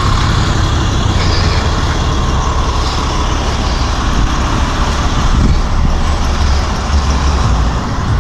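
Steady low rumble of vehicle engines with road traffic noise.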